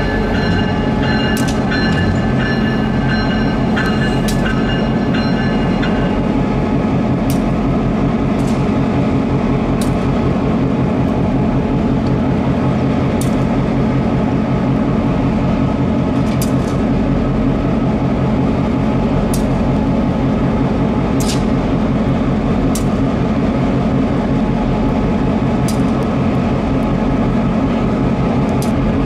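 EMD GP38 diesel locomotive idling steadily on a turning turntable. High squealing tones run for the first six seconds or so, and sharp clicks sound every second or two.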